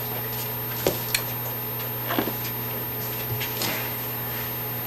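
Steady low room hum, with a few soft clicks and rustles of paper sheets being handled.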